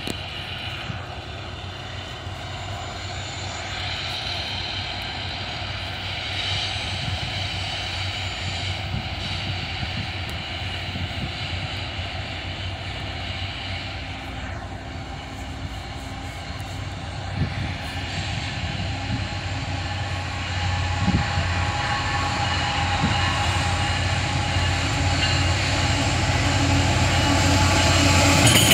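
Diesel freight locomotive approaching on the main line, its engine drone growing steadily louder as it nears.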